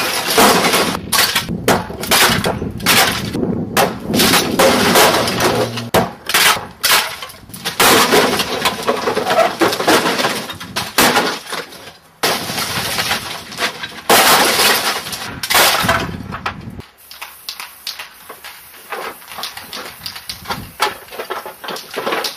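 Repeated crashing and breaking as brittle corrugated sheeting on a metal shelf is smashed, with pieces shattering and clattering down. After about sixteen seconds the crashes stop and only quieter scattered knocks and clicks remain.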